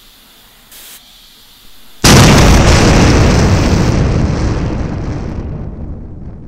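A short hiss from a floor pump stroke about a second in. Then a bicycle tire, pumped past its pressure limit, bursts with a loud bang about two seconds in, and the noise dies away slowly over the following seconds.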